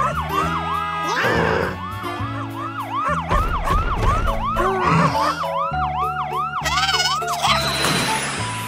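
Cartoon police-siren sound effect: a fast up-and-down wail repeating about three times a second, over background music with a stepping bass line. A short swishing sparkle comes in about a second in, and another comes near the end after the siren stops.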